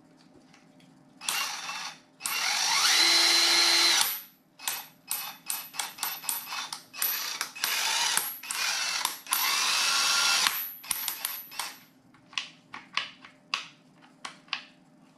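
Avid Power 20V cordless 1/2" impact wrench (MCIW326) running free with no load as its trigger is pulled: a short burst, then a run of nearly two seconds whose whine rises as the motor spins up, then a string of quick trigger blips and a second run of almost two seconds. It ends in shorter, fainter blips.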